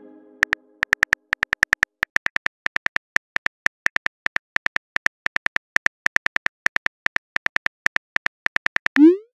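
Phone keyboard key clicks from a texting app's typing sound, a fast even run of several clicks a second as a message is typed. Near the end they stop, and a short rising whoosh starts as the message is sent.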